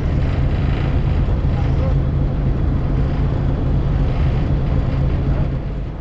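A fishing boat's engine running steadily with a low, even hum under wind and water noise, easing off slightly near the end.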